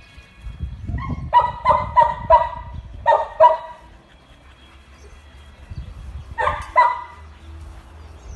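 Dog barking: a quick run of about six barks, then two more a few seconds later.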